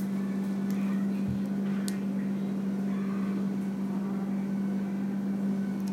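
A steady low hum, one even tone held without change, with faint soft sniffing as a wax melt is held to the nose and smelled.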